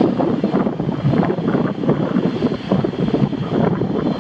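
Heavy wind buffeting the microphone, the loudest sound, over the approach of a PKP Intercity EU160 (Newag Griffin) electric locomotive and its coaches arriving at the platform.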